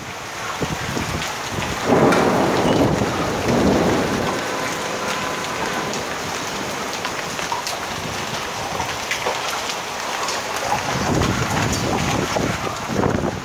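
Heavy rain pouring down in a thunderstorm, a dense steady hiss full of sharp taps, swelling louder about two seconds in and again near the end.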